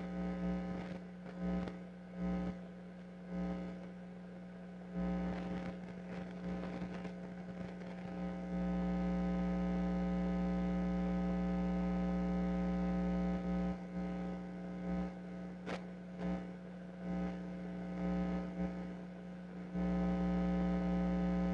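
Electrical AC hum from a connected battery maintainer, heard through the aircraft intercom's wired feed into the camera. It cuts in and out in short bursts at first, then holds steady and louder for several seconds at a time, twice.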